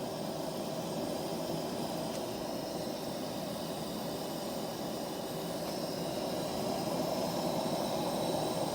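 A steady rushing noise with no distinct events, rising slightly in level near the end.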